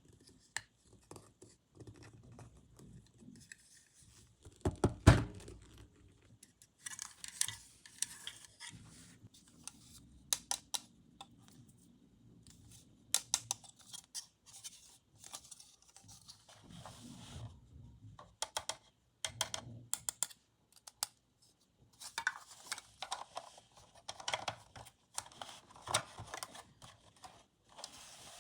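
Toy unboxing handling sounds: packaging and small plastic toy pieces being handled, giving irregular clicks, taps and rustling, with one loud knock about five seconds in.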